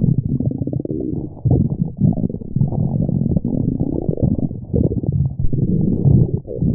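Loud, continuous stomach growling: low, muffled gurgling and rumbling that rises and falls unevenly, with a few brief breaks.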